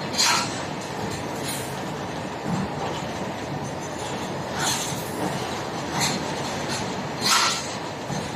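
Plastic injection moulding machine running with a steady mechanical rumble and hiss, broken by several short hisses of released air.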